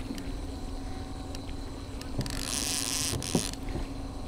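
A 75-horsepower outboard motor running steadily with a low hum. About two seconds in, a short hiss lasts about a second, and there are a few faint knocks.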